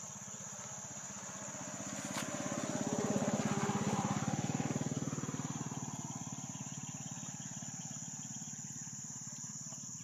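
A small engine passes by, growing louder to a peak about three to four seconds in and then fading, with a fast, even pulse. Under it runs a steady high-pitched insect drone.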